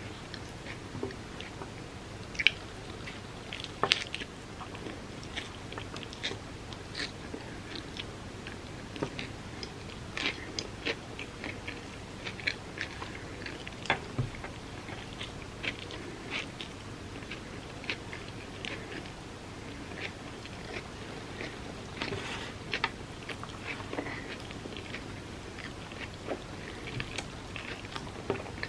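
Close-miked eating: a person biting and chewing food, with frequent sharp, wet mouth clicks at an irregular pace.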